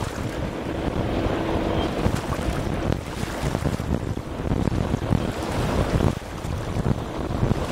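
Wind buffeting the microphone over the wash of water and the low rumble of a harbour tugboat under way.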